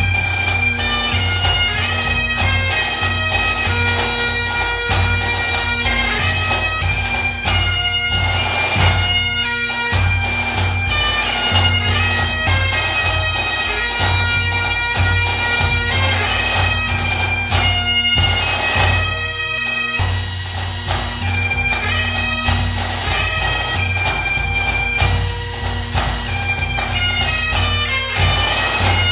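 Bagpipes playing a tune over their steady drones.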